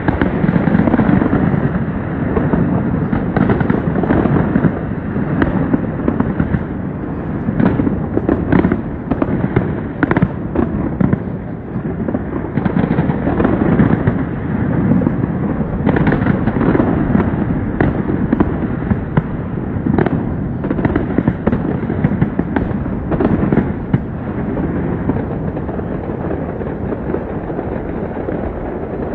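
Fireworks display going off: a continuous rumble of booms with many sharp cracks and crackles throughout.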